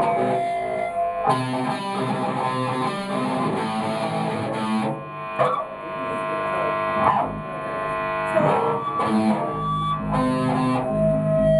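Punk rock band playing live and loud: distorted electric guitar in a dense wall of noise that swells and drops back in sections.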